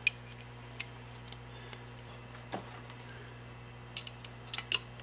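Scattered light metal clicks and taps as a 5/16 drill bit is worked into the hole in a motorcycle balancer shaft's split gear to lock the two gear halves in line, with a quick cluster of clicks near the end. A steady low hum runs underneath.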